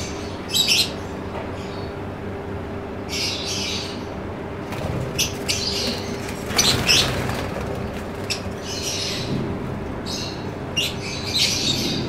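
Caged lovebirds chirping and squawking in short shrill bursts every second or two, over a steady low hum.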